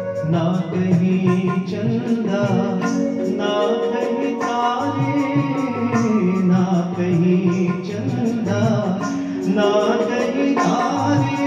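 Live Hindustani-style song: a male singer with tabla and keyboard accompaniment, the tabla keeping a steady beat under the melody.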